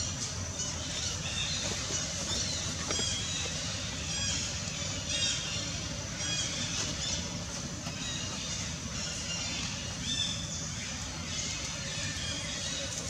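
Short high-pitched chirps and squeaks from small animals or birds, repeated irregularly, over a steady low rumble.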